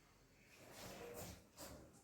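Near silence: room tone with a few faint, soft noises in the middle.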